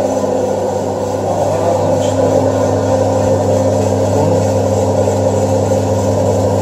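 Steady hum of running machinery, an even drone on a few fixed pitches that holds level throughout.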